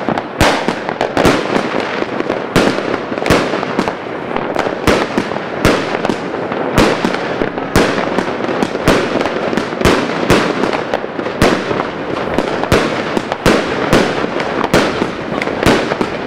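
Evolution Fireworks Rambam 3.0 consumer firework cake firing: a long, irregular volley of bangs, about two a second, with an unbroken noisy hiss of bursting stars between them.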